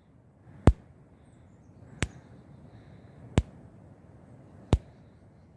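Electric fence snapping with each pulse of its charger, four sharp snaps about a second and a third apart. It is arcing where the wire is shorting out to something, which drains the fence.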